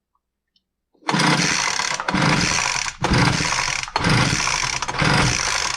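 Two-stroke Poulan Pro BVM200VS leaf blower engine being pull-started on its recoil starter, turning over with about five quick pulls in a row without catching: the engine won't start.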